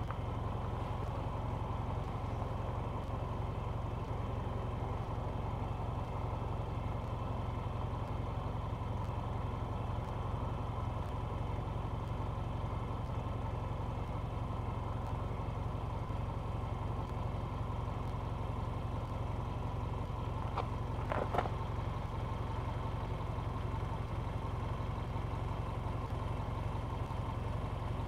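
A motor running steadily: an even low rumble with a faint hum over it. About three-quarters of the way through, a brief higher-pitched squeak.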